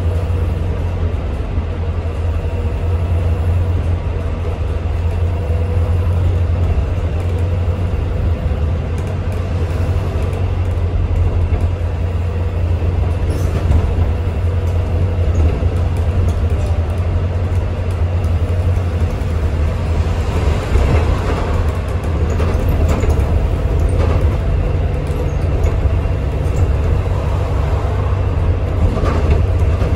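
Volvo B5L hybrid double-decker bus heard from inside on the upper deck while under way: a steady low drone with road noise and occasional rattles.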